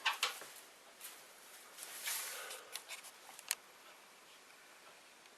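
Light handling noises: a soft rustle and a few small sharp clicks from parts being moved by hand, then quiet room tone for the last couple of seconds.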